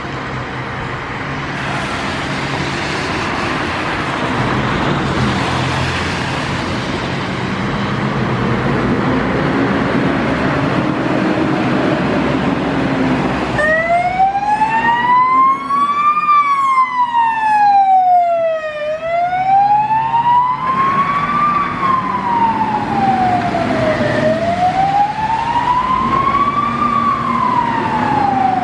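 Fire engine's siren switching on about halfway through and wailing, rising and falling slowly about every five seconds, with a faster-sweeping higher tone over it for a few seconds. Before it, steady road and engine noise.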